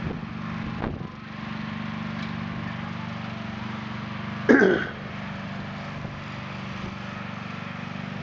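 Riding lawn mower engine running steadily as the mower drives across the lawn. About four and a half seconds in, a short, loud vocal burst from someone close by cuts over it once.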